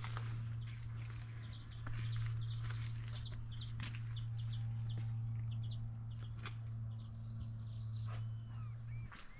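Small birds calling in short, quick bursts of high chirps, with a few slurred notes near the end. Under them runs a steady low hum that cuts out shortly before the end, with the odd footstep.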